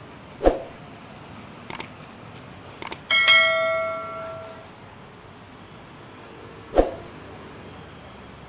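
Two quick clicks followed by a bright bell ding that rings out and dies away over about a second and a half: the sound effect of an animated YouTube subscribe-and-bell button. There is a dull thump shortly before the clicks and another near the end.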